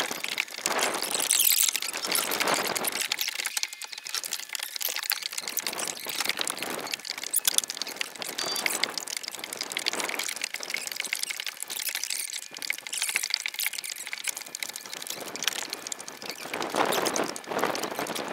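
Wind gusting across the microphone, strongest about a second in and again near the end, with water lapping and small scattered clicks.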